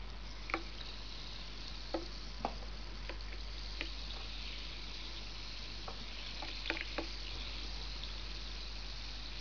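Carbonated water fizzing in a glass with raisins in it: a steady fizzing hiss, with about ten small sharp clicks scattered through it.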